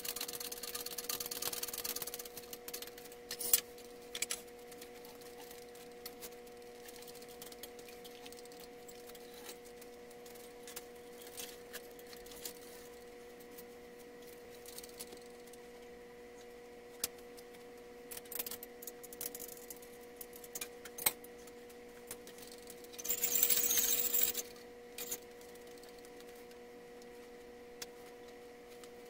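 Scattered metal clinks, knocks and chain rattles from an engine hoist and its chains as a metal battery box is worked into place, with a longer rattling stretch near the end. A steady faint hum runs underneath.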